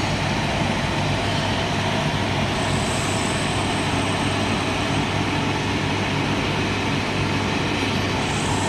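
Glass washing machine running steadily: an even rushing noise from its drying fans, pump and rollers over a low constant hum, as a glass sheet passes through the drying section. A faint high whine comes in briefly in the middle.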